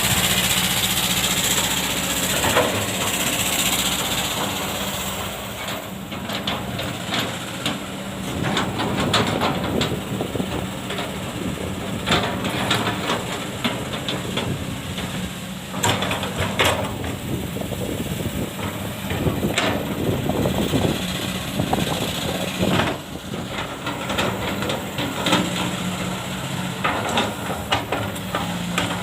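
Kobelco SK200 hydraulic excavator's diesel engine running steadily as it digs fine sand, with a loud hiss for the first few seconds, then many short knocks and scrapes.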